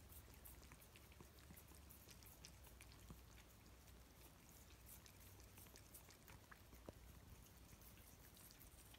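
Two cats licking a treat off a person's fingers: faint, wet, irregular clicks and smacks of tongues and mouths.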